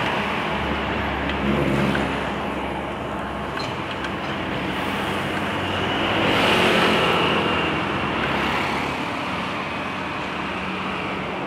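City street traffic noise: motor vehicles running and passing, with one passing loudest about six to seven seconds in.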